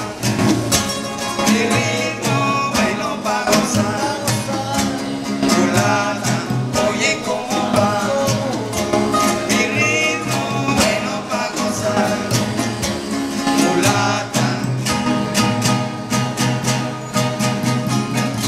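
Live acoustic trio: a nylon-string classical guitar and a second guitar strummed in a steady rhythm while men sing. The singing drops out about three-quarters of the way through, leaving the guitars playing on.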